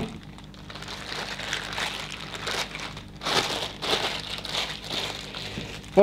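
Thin plastic bag crinkling and rustling in the hands as a lump of pastillage is pulled out of it: irregular crackly rustles throughout.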